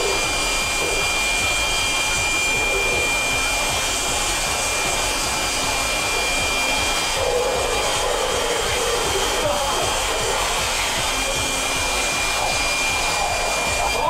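Leaf blower running steadily with a high-pitched whine, its nozzle blasting air into a man's mouth; it cuts off suddenly at the very end.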